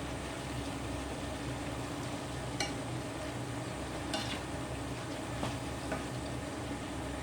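Braised cabbage, tomato and wood ear fungus being stir-fried in a wok: steady sizzling, with the spatula clinking against the wok a few times.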